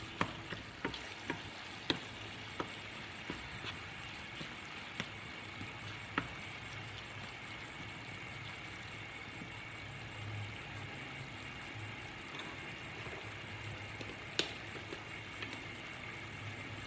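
Ground beef sizzling in a frying pan as a wooden spoon stirs it. The spoon knocks and scrapes against the pan several times in the first six seconds and once more near the end, over a steady low hum.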